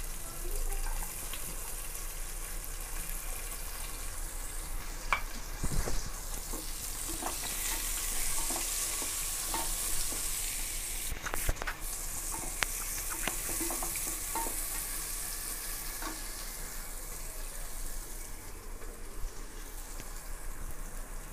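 Sliced onions sizzling in hot oil in an aluminium pressure cooker as they are fried for tempering, with scattered taps and scrapes of a wooden spatula stirring them against the pot.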